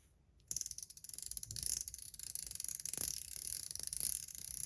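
Metal Toys Top C clicker fidget worked rapidly, making a dense run of sharp metallic clicks that starts about half a second in and goes on for about four seconds.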